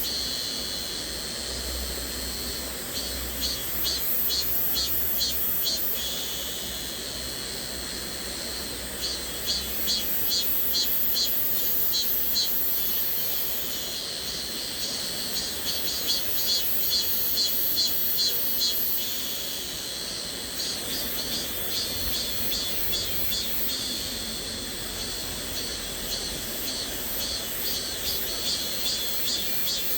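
Cicadas buzzing in rapid high-pitched pulses, the chorus swelling and fading in slow waves every several seconds over a steady high hiss. A soft wash of flowing stream water runs underneath.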